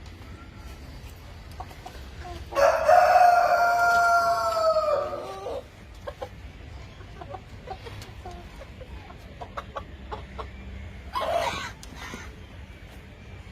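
Rooster crowing once: a loud, drawn-out call of about three seconds that drops in pitch at the end, about two and a half seconds in. A shorter call follows near the end, with scattered soft clucks between.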